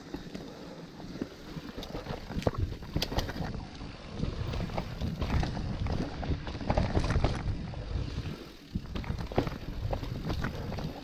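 Mountain bike descending a dirt trail: tyres rolling over the ground and the bike rattling and knocking over bumps, with wind noise on the microphone. The loudness rises and falls with the terrain and dips briefly about eight and a half seconds in.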